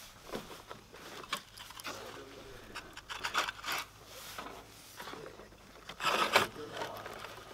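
Strapped bundles of terracotta tiles scraping and knocking against each other as they are lifted off a stack and set into a wheelbarrow. The loudest scrape comes about six seconds in.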